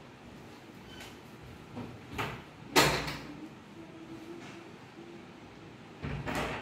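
A few sudden knocks: one about two seconds in, a sharper, louder bang just before three seconds that dies away quickly, and a half-second clatter near the end.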